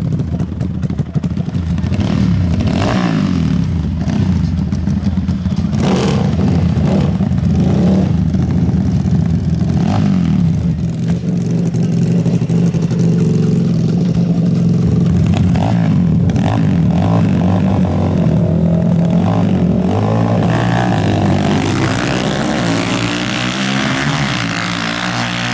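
450-class four-stroke race quad engines running steadily, with scattered sharp cracks and clatters. In the last few seconds the engines rev, their pitch rising and wavering.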